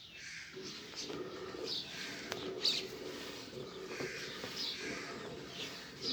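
Birds calling outdoors: many short, high, falling chirps repeat and overlap throughout, over a lower murmuring layer of calls.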